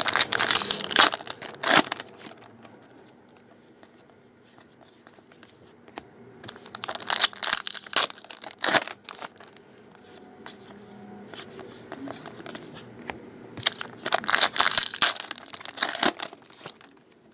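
Foil trading-card pack wrappers crinkling and tearing as they are ripped open by hand. It comes in three bouts, near the start, in the middle and near the end, with quieter handling between.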